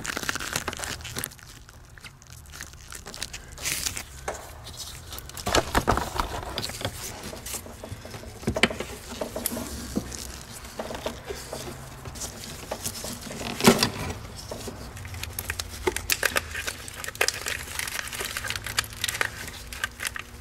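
Hand tools working rubber heater hoses off the heater core fittings: pliers on a spring hose clamp and the hoses twisted back and forth, giving scattered clicks, scrapes and rubber rubbing, with one sharper knock about two-thirds of the way through.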